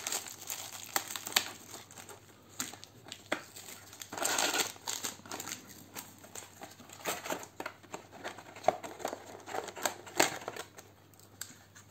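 Hands handling unboxing packaging: a plastic bag crinkling and cardboard rustling, with scattered small clicks and knocks. A longer crinkle comes about four seconds in.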